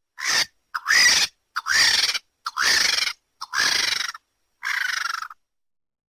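Vulture calling: six harsh, hissing screeches, each about half a second long, roughly one a second.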